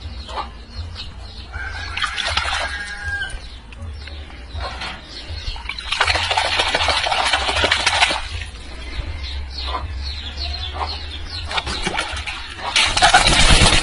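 A chicken in a basin of water giving short clucks, then a loud burst of splashing and wing flapping near the end as it flips itself upright. A steady low hum runs underneath.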